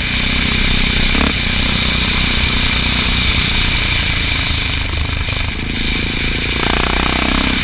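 Honda XR650L's single-cylinder four-stroke engine running while riding off road, with the revs climbing about two-thirds of the way through.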